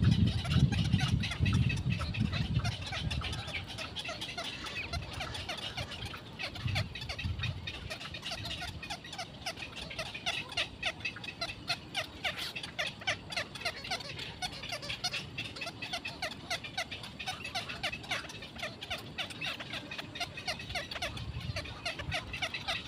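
A fast, continuous run of short chattering animal calls, several a second, with a low rumble in the first few seconds.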